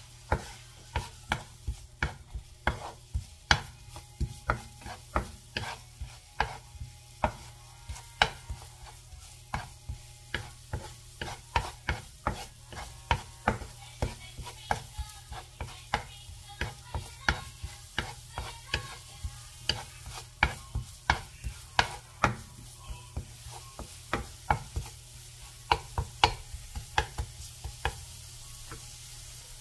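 Wooden spatula stirring chopped leek and onion in oil in a nonstick frying pan, knocking and scraping the pan about two or three times a second over a light sizzle. The stirring stops shortly before the end.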